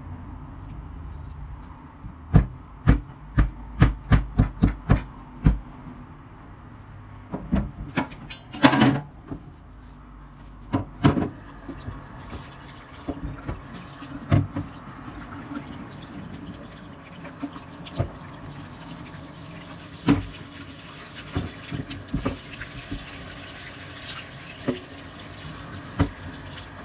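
Meat mallet pounding raw chicken breast flat on a plastic cutting board: a quick run of about nine strikes a few seconds in, then a few more knocks. From about eleven seconds in, a steady hiss of running water with scattered knocks.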